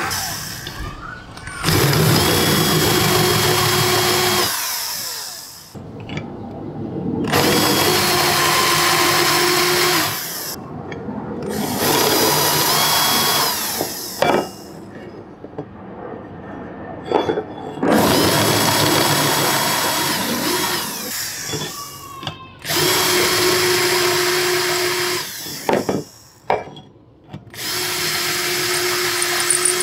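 Cordless drill with a small abrasive attachment grinding the cast-iron body and handle of a Darex No. 8 cabinet scraper plane to strip rust and old finish. The drill runs in bursts of a few seconds with a steady whine, starting and stopping about six times, and is quieter between bursts.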